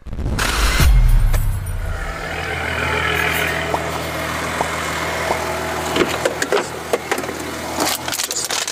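A deep boom, then a car engine idling with a steady low hum; a few short clicks and knocks come near the end.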